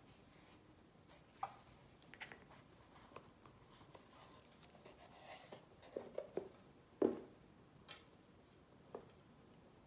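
Hands handling a leatherette jewellery box and its card packaging: scattered light taps and knocks with some soft rustling, the loudest knock about seven seconds in.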